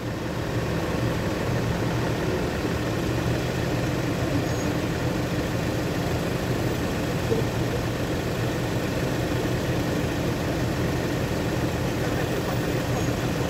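A vehicle's engine idling steadily, a low, even hum with no changes in speed.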